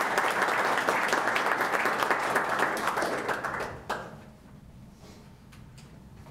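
Small seated audience applauding, a dense patter of many hands clapping that stops about four seconds in.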